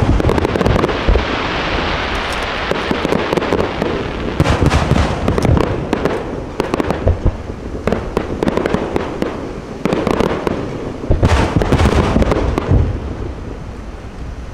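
Aerial fireworks display: shells bursting with deep booms and a dense, continuous crackle of crackling stars, with new volleys of bursts about four, seven and eleven seconds in.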